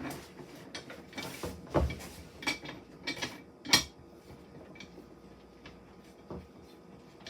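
A jack being let down under a toy fire truck: a few scattered mechanical clicks and knocks, the sharpest about two and four seconds in.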